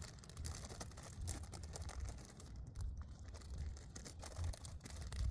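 Scattered small clicks and rustling of hand tools being handled, with snap ring pliers working a snap ring, over a low rumble.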